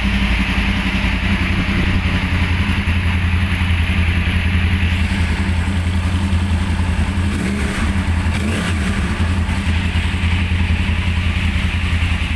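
2013 Yamaha R1's crossplane inline-four engine running steadily at idle through its stock exhaust.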